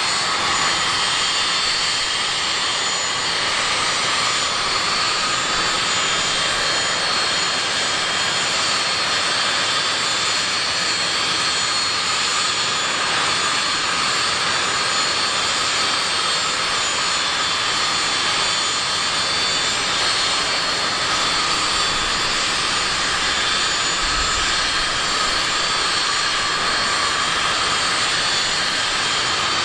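Steady whine and rush of the parked Avro RJ85's turbines running at idle: several high, steady whistling tones over an even rush, unchanging throughout.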